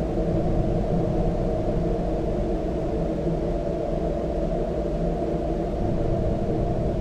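Dark ambient drone: a deep, steady rumbling wash with several low tones held underneath it, unchanging throughout.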